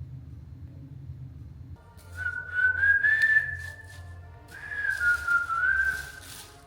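Baby monkey giving long, high-pitched whining cries, two drawn-out calls each held about two seconds with a slightly wavering pitch, starting about two seconds in.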